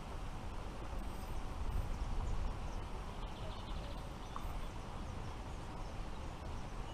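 Wind rumbling on the microphone outdoors, with a few faint bird chirps.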